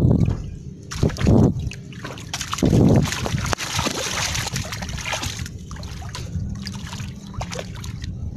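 Feet and a small dog's paws wading through ankle-deep seawater, sloshing and splashing in irregular steps. The splashes are louder in the first three seconds and softer after that.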